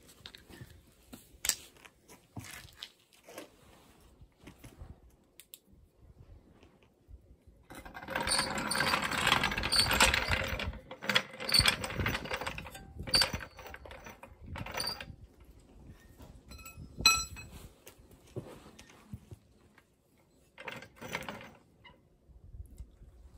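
Red hydraulic floor jack being rolled across concrete and positioned under a car's front crossmember: scattered rattles and clanks of its metal body, wheels and handle, with a longer stretch of continuous scraping and rattling about eight seconds in. A sharp metallic clink with a short ring comes near the end of the second third.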